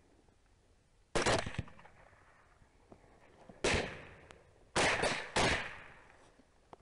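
Rifle shots fired at hogs through a thermal scope: one about a second in, then three more in quick succession near the middle, each a sharp crack with a short echoing tail.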